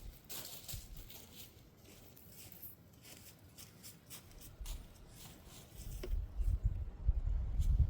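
Wind buffeting the microphone: a gusty low rumble that swells about six seconds in, over scattered light ticks and rustles.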